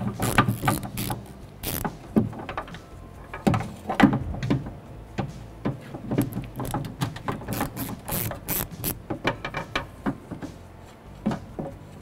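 Hand ratchet on a long socket extension clicking in quick runs as it unscrews the 10 mm mounting nuts of a car's outside door handle through the door's inner panel. The clicking thins out near the end.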